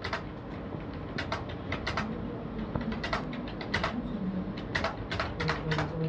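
Fast typing on a computer keyboard during a timed speed test: quick runs of key clicks with short pauses between them. A low cooing, tagged as a pigeon's, sounds faintly between the keystrokes.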